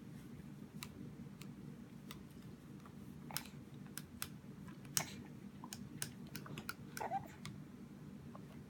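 Baby mouthing and chewing a plastic spoon: scattered small wet clicks and smacks, the sharpest about five seconds in, over a faint steady low hum.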